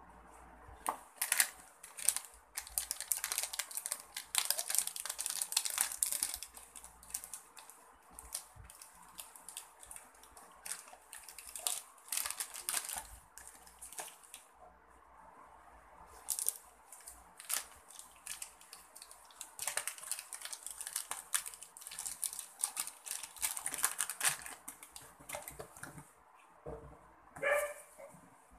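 Hands crinkling plastic packaging bags and handling the cardboard box insert, in irregular bursts with short pauses. Near the end comes a brief high whine that rises and falls.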